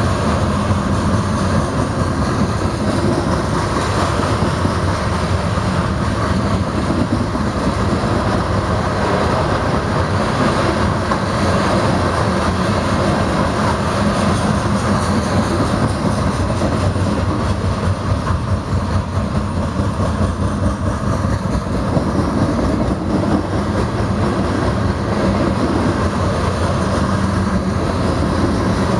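Empty open-top coal cars of a freight train rolling past. Their steel wheels on the rails make a steady rumble and clatter with a constant fine clicking.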